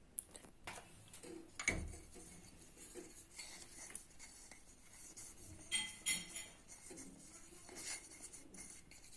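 Small metal lemon-shaped baking moulds being handled and greased with butter: scattered light knocks and faint rubbing, a dull thump just before 2 s and a few ringing metallic clinks around 6 s.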